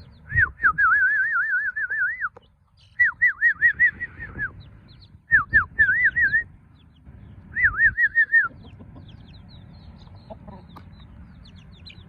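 Four bursts of a loud, clear, warbling trilled whistle, with faint high peeping of chicks between and under them.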